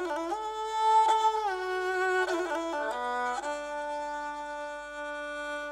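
Nepali sarangi bowed fiddle playing an instrumental passage of a folk song, gliding between held notes and ending on one long held note.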